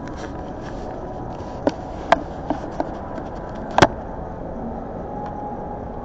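A handful of light clicks and taps on a hard tabletop, about five in two seconds with the sharpest near the end, as hard white tablets are set down. Behind them is a steady hum of food-court background noise.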